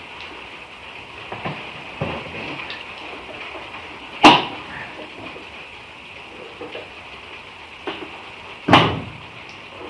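Metal scraping and small knocks as a steel bar is worked up under a Triumph TR6's jammed bonnet catch, with two sharp metallic knocks, about four seconds in and near the end; the later one is the bonnet latch letting go with a pop.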